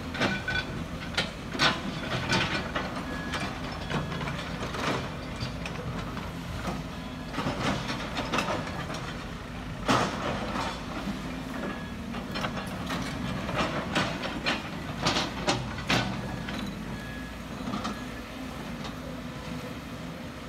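Two Sumitomo SH210 hydraulic excavators running steadily, with repeated irregular clanks and scrapes from their steel buckets digging laterite gravel and loading a dump truck. A sharp crash about halfway through.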